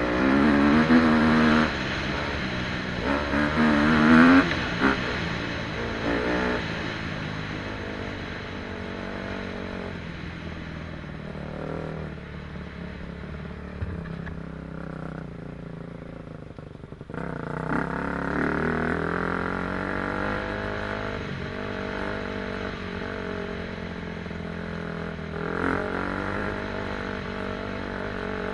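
KTM 250 SX-F four-stroke single-cylinder motocross engine revving up and down as the bike is ridden, with two hard bursts of throttle in the first few seconds. A bit past halfway the engine drops off briefly, then picks up again.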